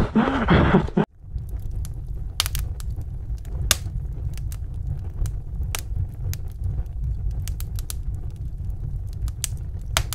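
Fire sound effect behind an animated logo intro: a steady low rumble with scattered sharp crackles and pops. Before it, a loud rushing noise cuts off abruptly about a second in.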